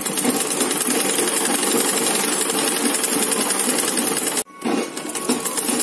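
Domestic sewing machine stitching through cotton fabric, running steadily with a rapid, even stitching rhythm. It stops abruptly for a moment about four and a half seconds in, then starts again.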